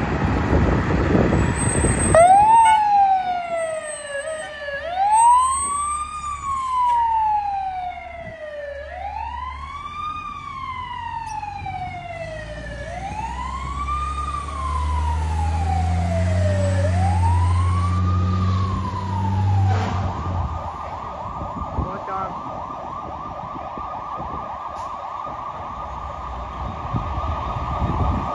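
Pierce Quantum aerial fire truck's siren. About two seconds in it begins a slow wail, rising and falling about every four seconds, with the truck's engine revving under it as it pulls away. About two-thirds through, the siren switches to a fast yelp.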